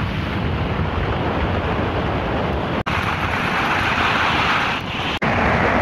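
Subaru WRX driving on a gravel road: a steady rush of tyres on loose gravel and wind on the microphone. The sound breaks off for an instant twice.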